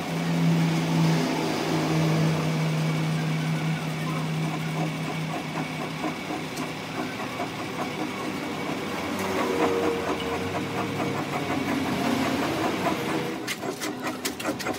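Metal lathe running with a steady hum that weakens after about five seconds and shifts in pitch. Near the end there is a quick run of metallic clicks and rattles.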